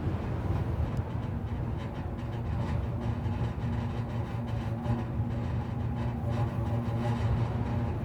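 Power pole and its wires humming in the wind like an aeolian harp: a steady low drone of several held tones over the rush of wind.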